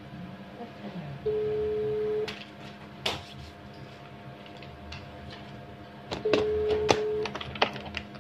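Telephone ringback tone played out loud: a steady one-second beep, twice, four seconds apart, the sign of an outgoing call ringing at the other end. Sharp clicks and taps of handling come between and around the beeps.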